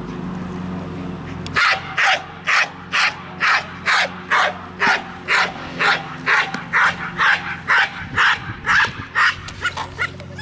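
A Belgian Malinois barking hard and steadily at the helper with the bite sleeve during protection work: a long, even run of loud barks, about two a second, starting about a second and a half in.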